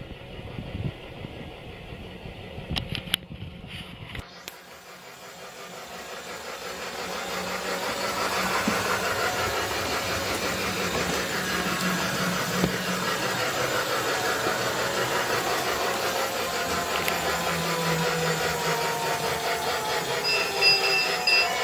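Lionel Polar Express G-scale toy train running on its plastic track: the locomotive's electric motor whirs and the wheels rattle over the track, swelling from about four seconds in to about eight seconds in as it comes close, then holding steady with a wavering whine. A brief high tone sounds near the end.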